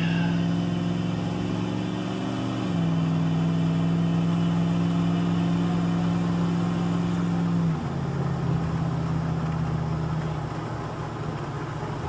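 Old Dodge pickup's engine pulling steadily under acceleration, heard from inside the cab. Its note drops twice as the truck shifts up, once about a quarter of the way in and again about two-thirds of the way in, and is less even after the second shift.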